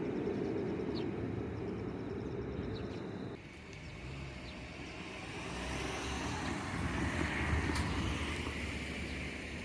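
Light-rail tram running, a steady low rumble. It drops off abruptly about three seconds in, then swells again and fades toward the end.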